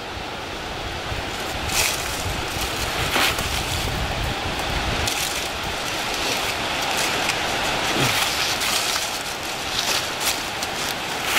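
Hands digging and scraping in dry leaf litter and soil around a buried piece of aircraft wreckage: steady rustling with many small crackles and clicks. A low rumble runs through the first five seconds or so.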